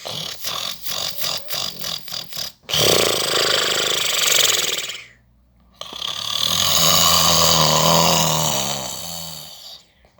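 Snoring: a fluttering, rattling snore of about four pulses a second, then two long noisy breaths, the second carrying a low droning tone that fades out near its end.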